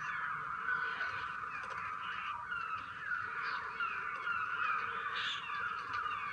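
A dense flock of birds calling all at once: many overlapping short, falling caws and squawks with no break.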